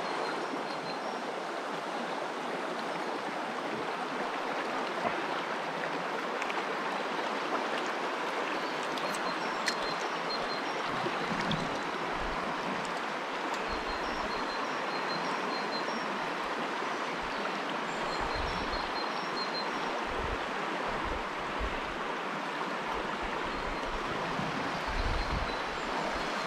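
Shallow river water running over a stony riffle: a steady rushing of the current, with short high chirps now and then.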